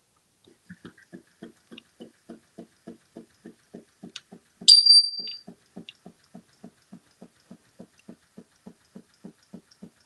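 Electric flopping-fish toy wagging its tail on carpet, a steady rhythmic tapping at about three and a half beats a second. About halfway through, a single short, high-pitched squeak cuts in loudest.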